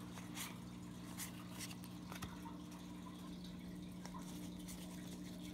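Faint, scattered clicks and light rustles of trading cards being handled and flipped through, over a steady low electrical hum.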